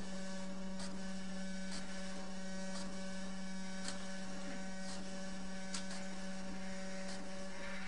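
Desktop printer printing a page: a steady hum with a sharp click about once a second, then louder whirring near the end as the sheet feeds out.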